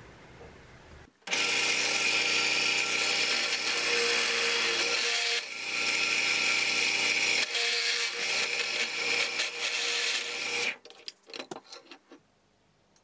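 Drill press running as a small bit drills a centre hole into a copper pipe cap, steady and loud, easing briefly twice. About eleven seconds in it cuts off and a few light clicks follow.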